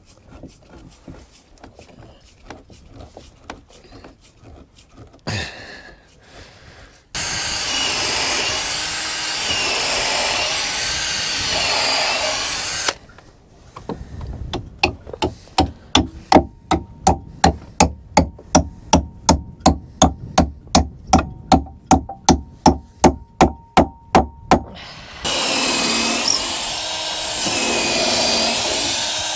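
Power tools working wood. Two stretches of loud, steady power-tool noise are split by about ten seconds of evenly spaced sharp knocks, roughly three a second. The first few seconds hold only faint clicks.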